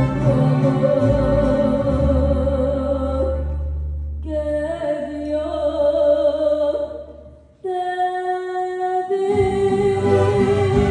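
A mariachi ensemble is performing: violins and guitars over a deep bass line, with a singer holding long notes. The music thins out past the middle and stops almost completely for a moment. It comes back on a long held note, and the full band rejoins near the end.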